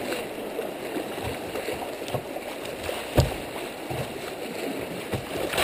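Creek water rushing and churning through a riffle around a kayak, with a few short splashes and knocks against the boat, the strongest a little past three seconds in.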